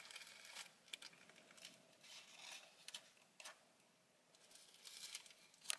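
Faint rustling with scattered small clicks and crackles, and a sharper click right at the end.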